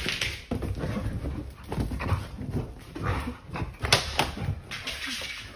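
A dog whimpering as it jumps about, with uneven thuds and a few sharp clicks from its paws landing on the floor and a bed.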